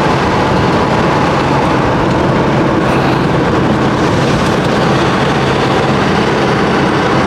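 Steady road and engine noise from a motorhome driving along at an even pace, with no distinct knocks or changes.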